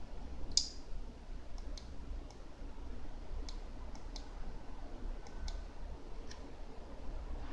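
About ten irregular, sharp clicks, the loudest about half a second in, over a steady low hum.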